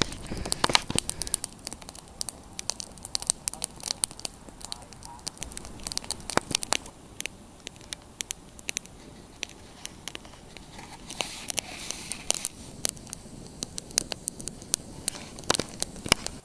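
Snowshoes crunching on packed snow while walking: a run of irregular, sharp crunches.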